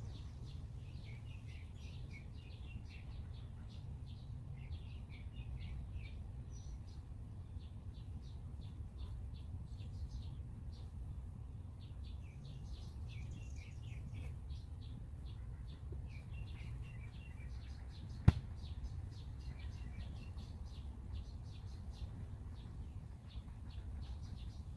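Songbirds chirping and singing over a low steady rumble, with one sharp click about three-quarters of the way through.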